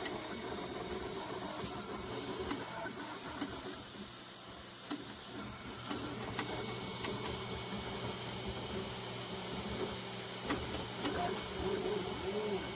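Creality Ender 3 V3 SE FDM 3D printer running mid-print: a steady fan hum under the whine of its stepper motors, whose pitch rises and falls in short arcs as the print head moves, clearest near the end, with a few light ticks.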